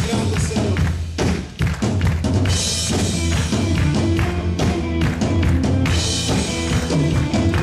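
Live church band playing an instrumental passage: drum kit, bass guitar, guitar and keyboard, with frequent drum and cymbal hits over a steady bass line.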